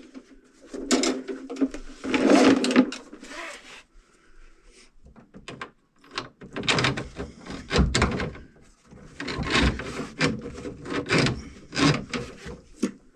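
Irregular knocking and clattering of hard objects, with sliding and rubbing in between; the knocks come thick and fast through the second half.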